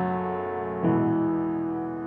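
Background piano music: slow, sustained chords, a new chord struck a little under a second in and left to ring and fade.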